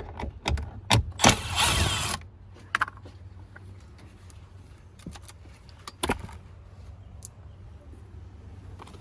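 Plastic interior trim panel being worked loose: a few sharp clicks, then a loud scraping rattle lasting about a second, followed by scattered clicks and knocks of parts being handled.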